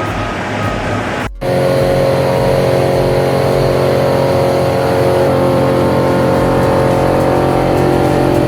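A large wood chipper's engine running at a steady high speed. About a second and a half in, it starts abruptly after a sudden cut from a noisier, rougher machine sound.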